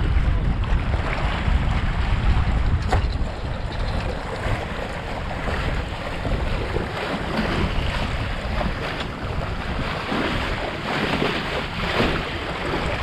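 Wind buffeting the microphone over the steady rush and splash of water along the hull of a small sailboat under way.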